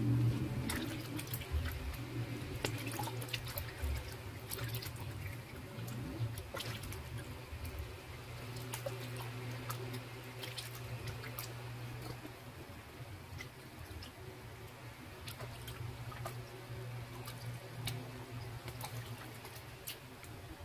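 Water splashing and dripping in irregular small bursts as raw squid are handled and rinsed in a basin of water, over a steady low hum.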